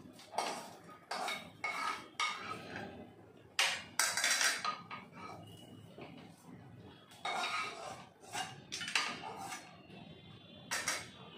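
Metal slotted spatula scraping and knocking inside a non-stick kadai as fried coconut pieces and ginger are scraped out into a bowl: a string of irregular scrapes and clinks, with a short lull in the middle.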